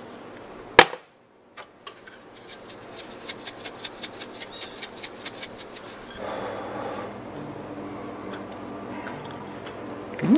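A sharp knock, then a hand-twisted pepper grinder cracking pepper in quick, even strokes, about five a second, for some three and a half seconds.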